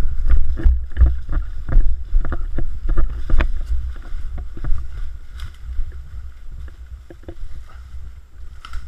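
Footsteps crunching and snapping on dry leaf litter and twigs, with gear rattling and a low rumble from a jostled body-worn camera. The steps come two or three a second at first and thin out after about four seconds as the movement stops.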